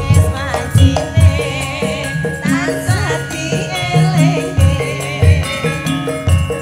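Campursari band playing: a female singer's ornamented, wavering vocal line over sustained gamelan metallophone tones and repeated kendang drum strokes.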